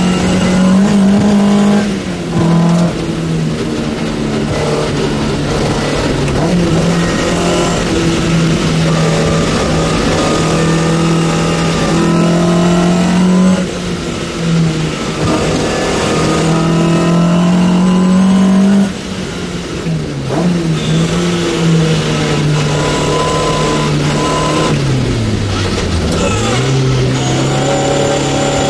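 Racing Opel's engine heard from inside the cockpit under hard acceleration. The revs are held high, with short dips at gear changes. Near the end the revs fall low and climb again.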